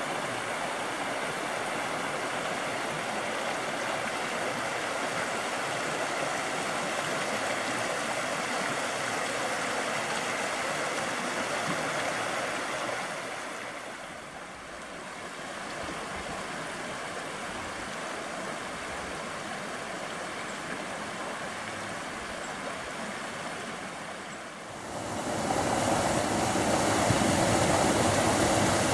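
Mountain creek rushing over rocks and fallen logs, a steady rush of water. About halfway through it dips, then runs on a little quieter. Near the end it grows louder and fuller as a small waterfall spills into a pool close by.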